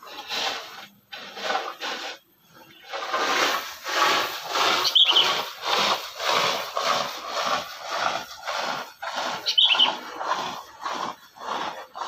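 Sooty-headed bulbul giving two short, high chirps, one about five seconds in and one near ten seconds, over a steady run of harsh, scratchy strokes coming two or three a second.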